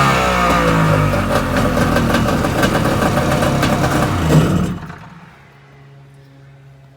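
1998 Kawasaki STX1100 jet ski's two-stroke engine running loud with its pitch rising and falling, then dropping away about four and a half seconds in to a much quieter, low steady hum.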